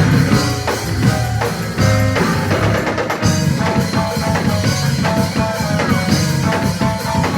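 Church band music: a drum kit plays a steady beat under short, repeated chords.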